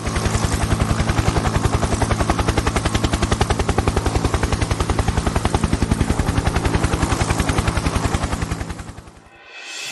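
Honda XR250 Tornado's single-cylinder four-stroke engine idling, a fast, even run of exhaust pulses that fades out near the end.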